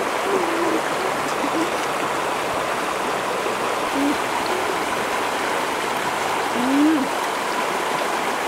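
Shallow stream running steadily over rocks. A few short, low sounds rise and fall in pitch on top of it, the loudest a little after two-thirds of the way through.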